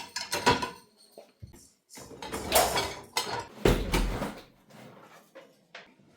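A series of knocks and clattering bumps from household things being handled, the loudest with a low thud about four seconds in.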